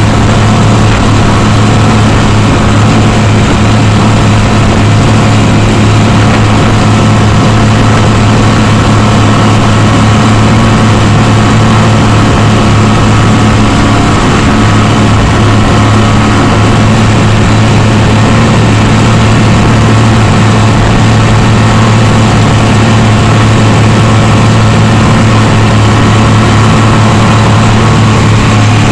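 Rigid inflatable boat's engine running steadily at speed, a constant low drone that does not change pitch, with water rushing and splashing along the hull.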